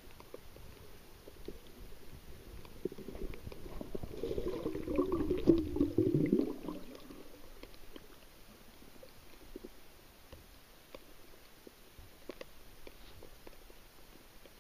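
Underwater sound picked up by a submerged camera: faint scattered clicks and crackles throughout, with a low gurgling rumble that swells about four seconds in and fades out by about seven seconds.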